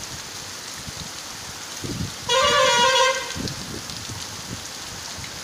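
Steady rain falling, with a vehicle horn giving one honk of under a second about two seconds in.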